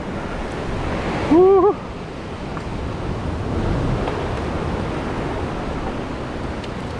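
Ocean surf surging and washing against a rock ledge, a steady rush of water. A short exclaimed vocal cry comes about a second and a half in.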